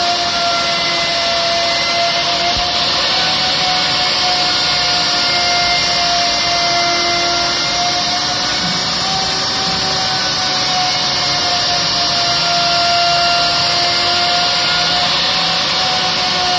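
CNC router spindle running while its cutter mills the machine table's surface: a steady whine that wavers slightly in pitch, over a continuous cutting hiss.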